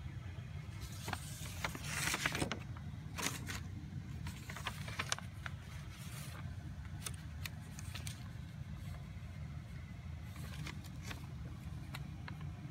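Spiral-notebook paper pages rustling and crinkling in short bursts as they are turned and handled, loudest about two seconds in, over a steady low hum.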